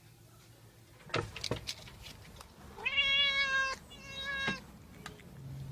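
A few sharp clicks of keys in a door lock, then a domestic cat meowing loudly twice, a long call and then a shorter one, demanding to be fed.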